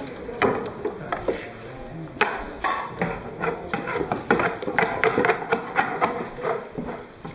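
Wooden pestle (kine) knocking and thudding into freshly steamed rice in a wooden mortar (usu) while mochi is pounded, in quick, irregular strokes several a second.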